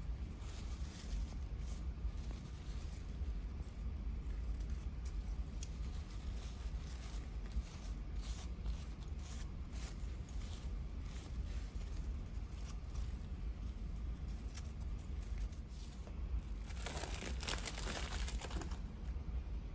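Paper being handled during a paper craft: scattered soft rustles and crinkles, with a longer, denser rustle near the end, over a steady low hum.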